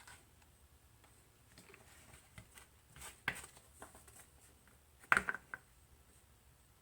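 Scattered light clicks and taps from handling a hot glue gun while gluing a cord's strain relief, with a sharp click about three seconds in and a quick cluster of the loudest clicks about five seconds in.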